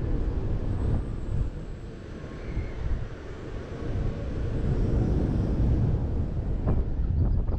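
Wind buffeting the microphone of a rider-mounted action camera on a moving fairground thrill ride: a steady low rumble with no voices.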